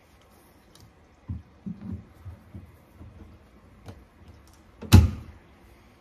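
Pliers gripping and working at small tacks in a wooden furniture door: a few soft knocks and light clicks, then one sharp click about five seconds in. The tacks are breaking off rather than pulling out.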